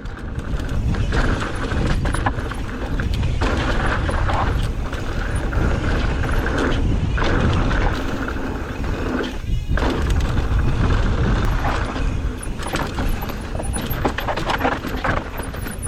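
Mountain bike descending a loose dirt and rock trail at speed: tyres rolling and skidding on the dirt, the bike rattling and knocking over bumps, with steady wind rush over the microphone.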